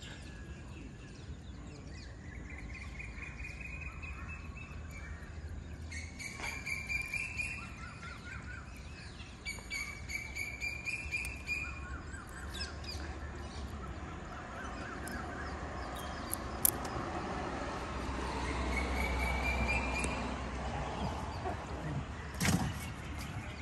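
Birds calling: drawn-out whistled calls that rise slightly in pitch, repeated every few seconds, over a low steady rumble. A single sharp knock sounds near the end.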